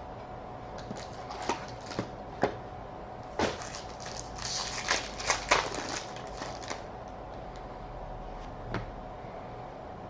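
Trading-card box and pack being opened by hand: a few sharp clicks and taps, then a few seconds of crinkling, tearing packaging and card handling in the middle, and a single light tap near the end.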